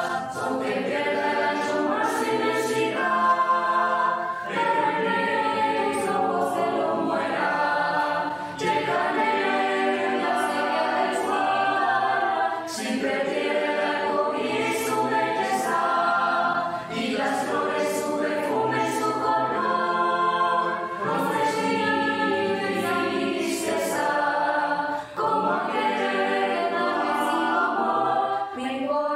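A mixed choir of young men and women singing together, several voices at once with the melody moving continuously.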